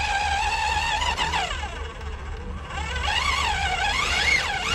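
Electric motor of an RC rock crawler whining, its pitch following the throttle: a steady tone at first, a downward glide, then repeated up-and-down sweeps in the second half.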